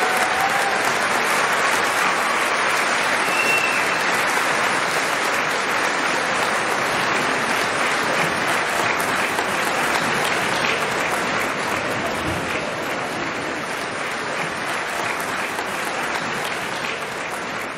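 Audience applauding steadily with dense clapping, slowly dying down toward the end.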